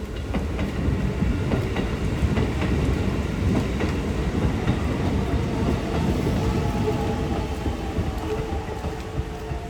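Train running on the rails, a steady rumble with wheels clicking over rail joints; a steady whine comes in over the second half.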